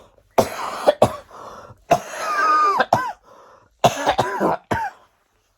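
A person in a harsh coughing fit from a cough that has lingered for over three weeks. There are three bouts: two sharp coughs, then a longer strained cough with a wavering, whistly pitch, then a quick run of coughs.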